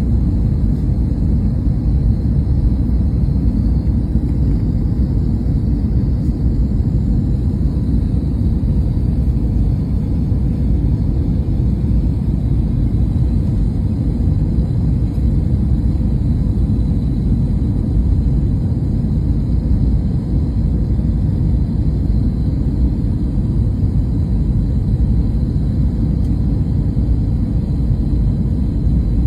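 Airliner cabin noise: a steady low rumble of jet engines and airflow heard from inside the passenger cabin, even throughout with no changes.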